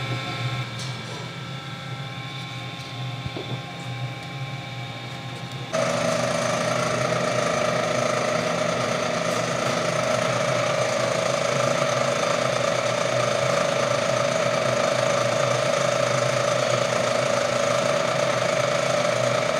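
Horizontal mill running, a steady lower machine hum at first; about six seconds in it gives way to a louder, continuous cutting noise with a constant tone as the center drill in the spindle spots a hole in the adapter plate.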